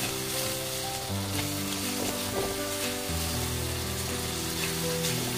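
Dried chilies sizzling in hot oil and sauce in a wok as a spatula stirs them through, with background music of held notes underneath.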